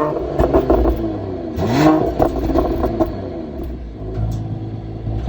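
Mercedes-AMG GT 53's inline-six engine and exhaust, blipped once about two seconds in so the pitch rises and falls, then settling back to a steady idle, with a few sharp crackles in the first second.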